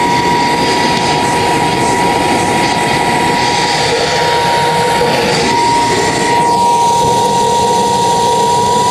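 Sapphire-5 gas-turbine auxiliary power unit running on bottled gas: a steady high whine over the dense rush and rumble of combustion.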